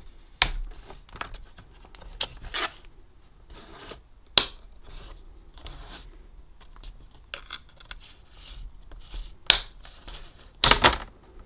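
A plastic laptop screen bezel being pried off the lid: its retaining clips pop loose with a series of sharp clicks, the loudest near the end, with plastic scraping and rubbing in between.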